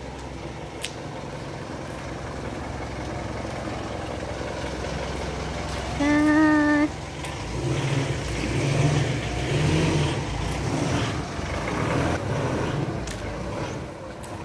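Engine of an SUV running close by as it drives up the street, with one short car-horn beep about six seconds in. After the beep the engine note rises and falls unevenly as the vehicle pulls away.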